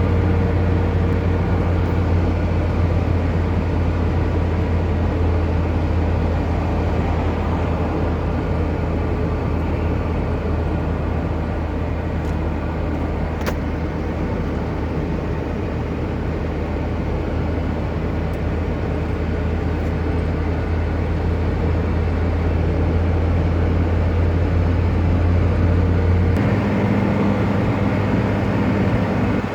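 Car driving at a steady speed, heard from inside the cabin: a continuous low engine and road drone with tyre noise. Near the end the low drone shifts to a different pitch.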